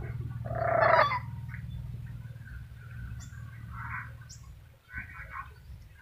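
Black-capped lory calling: one loud harsh call about a second in, then several softer, shorter calls. A low steady hum runs underneath and stops near the end.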